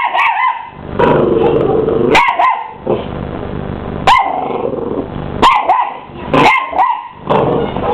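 A mini English bull terrier puppy barking and yapping repeatedly, about half a dozen high barks with a little growling between them, at a running vacuum cleaner whose steady hum lies underneath.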